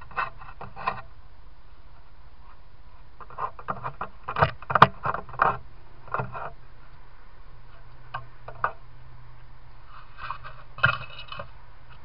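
Grey foxes out of sight under a shed, scratching and scraping in irregular clusters of short sharp sounds, loudest about four to five seconds in, over a steady low hum.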